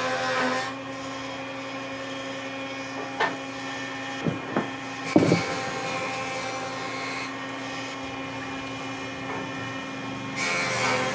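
Electric power tool motor running steadily, its level dropping shortly after the start and rising again near the end, with a few sharp knocks in the middle.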